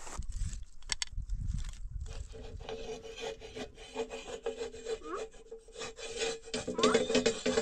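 Continuous rubbing and scraping made up of many quick clicks, over a steady hum, with a couple of short rising squeaks in the second half.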